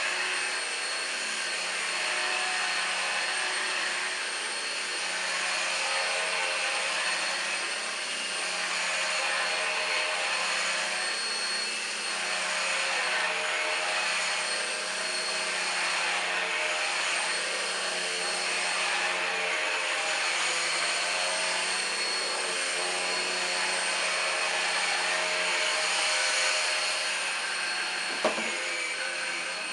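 Numatic Henry Quick cordless stick vacuum running steadily: a thin high motor whine over a hiss of rushing air, swelling and fading a little. A single sharp knock comes near the end.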